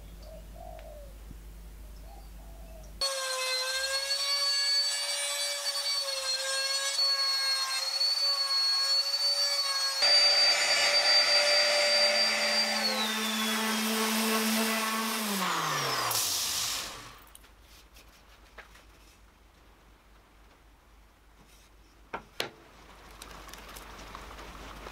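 Handheld trim router running with a steady high whine as it routes an inlay channel into an end-grain wooden board. It gets louder and rougher about ten seconds in. It is then switched off, and its pitch falls as the motor winds down.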